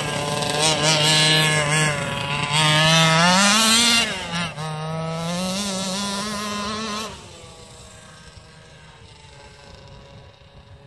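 Small two-stroke gas engine of a 1/5-scale Rovan Losi 5ive-T RC truck running hard, its pitch dipping and climbing with the throttle. At about seven seconds it falls away to a faint, distant drone as the truck drives off.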